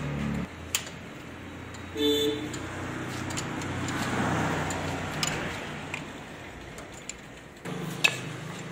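Workshop noise with sharp metal clinks from spanners working bolts on a car's gearbox. A car horn toots briefly about two seconds in.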